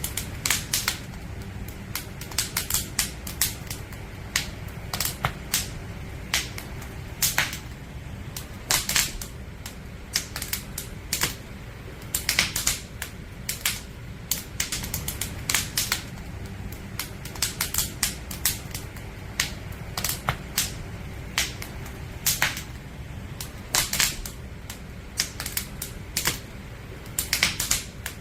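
Burning firewood in a campfire crackling: irregular sharp pops and snaps, often in quick clusters, over a steady low rumble of the fire.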